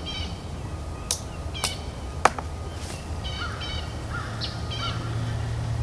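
A bird cawing repeatedly in short pairs of harsh calls. Three sharp clicks fall between about one and two and a half seconds in, the last the loudest, over a steady low hum.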